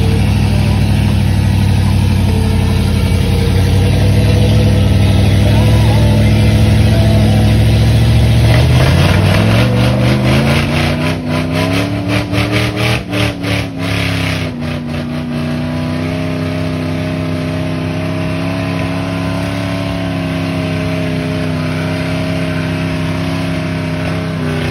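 A rock-crawling Jeep Wrangler's 4.8-litre LS V8 labours at low revs on a rock ledge, then revs up over a few seconds about a third of the way in and holds higher revs while the tyres spin on the rock. A rapid clatter of knocks comes through as the revs climb.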